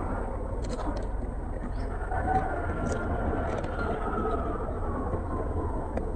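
Steady low rumble of background noise with a few faint clicks, and a faint drawn-out tone over it in the middle.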